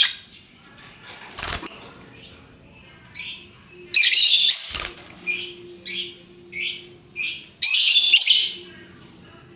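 Lovebirds calling: a string of shrill chirps about every half second, with two longer, louder bursts of rapid chatter about four and eight seconds in. Near the end a fast, even run of high pips begins.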